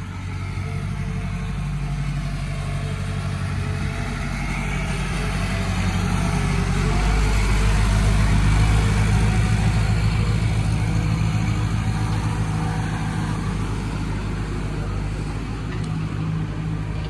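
An engine idling steadily, getting louder towards the middle and easing off again.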